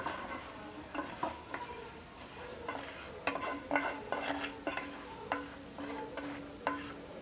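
Metal spoon clinking and scraping against a pan in irregular knocks, as roasted vermicelli is scraped out into a pot of boiling milk. A low steady hum joins about halfway through.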